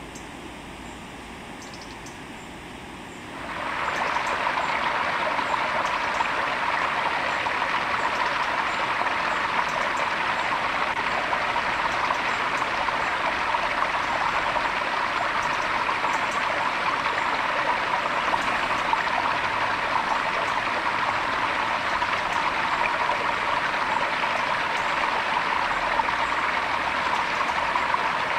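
Small rocky stream running over little cascades, a steady rush of water. It comes in about three and a half seconds in, louder than the faint hiss before it.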